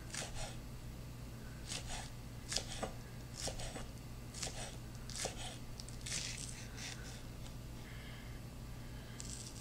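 Knife slicing green onions on a wooden cutting board: soft, crisp cuts, about one stroke a second, each ending in a light tap of the blade on the board. A faint steady hum lies underneath.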